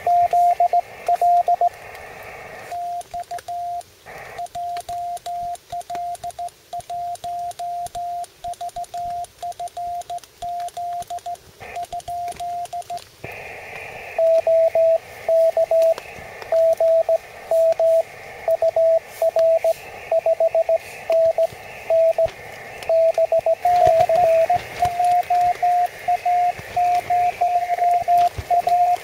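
Morse code (CW) on a small QRP shortwave transceiver: a single beeping tone keyed on and off in dots and dashes, over a faint receiver hiss. From about three seconds in to about halfway the signal is quieter. It then comes back louder at a slightly lower pitch, and shifts pitch again a little past two-thirds of the way.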